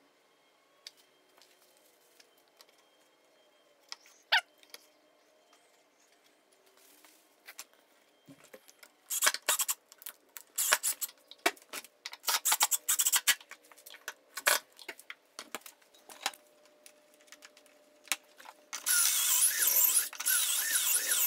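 Scattered knocks and handling clatter of wood pieces, then a drill-driver running for about two and a half seconds near the end, driving pocket-hole screws to join the glued leg supports.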